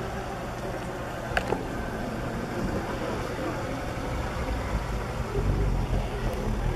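Wind buffeting the camera microphone over a steady outdoor hiss, the low rumble growing stronger about five seconds in. A short sharp click sounds once about a second and a half in.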